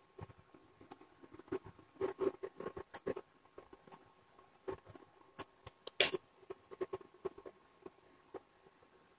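Light, irregular clicks and taps of kitchen utensils being handled around a nonstick pan, thickest about two to three seconds in, with one sharper clink about six seconds in.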